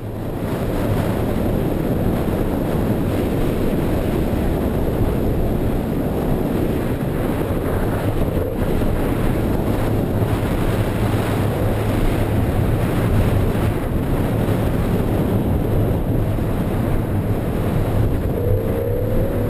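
BMW E46 M3's straight-six engine running steadily under power, heard from inside the cabin while the car drifts on a wet skid pad, over a steady wash of wind and water-spray noise.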